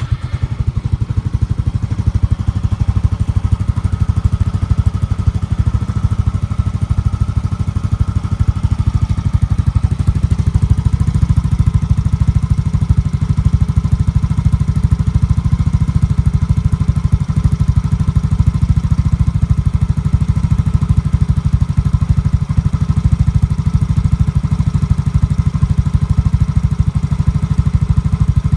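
Yamaha Mio i 125 scooter's single-cylinder four-stroke engine, breathing through a JVT V3 adjustable aftermarket exhaust, catching right at the start on a cold start and settling into a steady idle. The exhaust gives an even, rapid beat of pulses that does not rise or fall.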